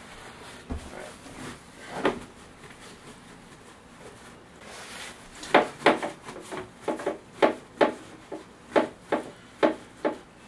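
Paper towels being patted down onto the wet skin of a raw turkey: a few scattered pats, then a steady run of about a dozen quick pats, two or three a second, in the second half.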